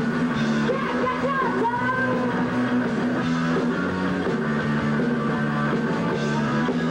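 Live punk rock band playing loudly, electric guitar to the fore over held chords, with some sliding, bending notes in the first two seconds.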